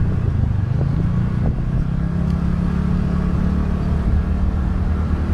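TVS Ntorq 125 scooter's single-cylinder four-stroke engine running at a steady cruising pace while being ridden, with road rumble underneath.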